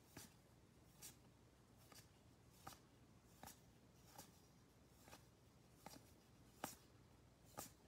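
Paper baseball cards being flipped one at a time from one stack onto another: a faint, short card snap about every 0.8 s, about ten in all.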